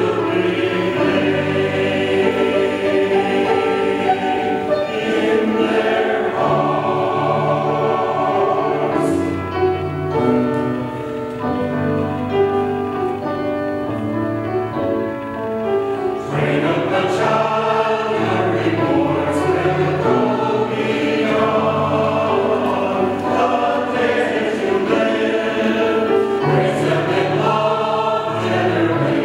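Mixed church choir singing an anthem with piano accompaniment.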